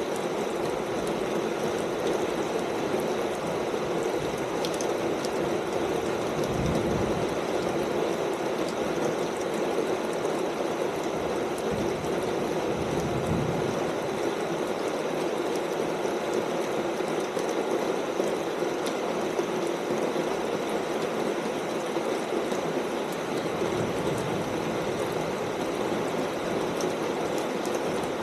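Steady rain falling on a corrugated tin roof, an even dense patter of many drops. Two brief low rumbles sound under it in the first half.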